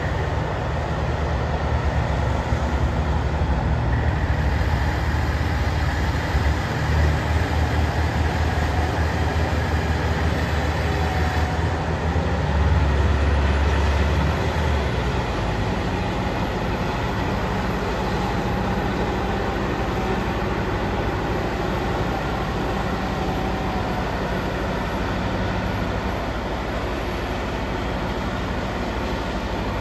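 Caterpillar 988H wheel loader's C18 diesel engine running as the loader drives up a quarry ramp. A heavy low rumble is strongest about halfway through, then eases to a steadier, lower run as the machine moves off.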